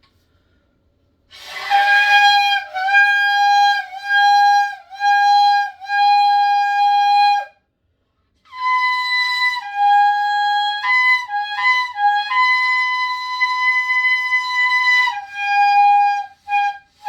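A shofar blown in a series of short blasts on one steady note. After a brief pause comes a longer passage that steps up in pitch for a moment, holds one long blast and ends with a few short blasts.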